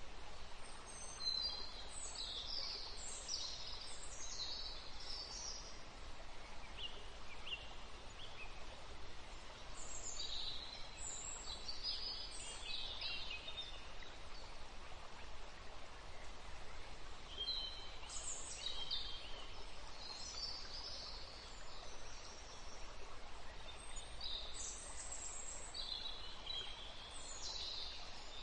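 Small birds chirping in short clusters of high calls every few seconds over a steady hiss.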